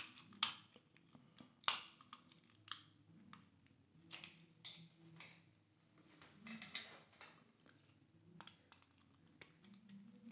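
Faint, irregular clicks and scrapes of a screwdriver turning a terminal screw on a plastic switch-and-outlet combination device, tightening the line wire down.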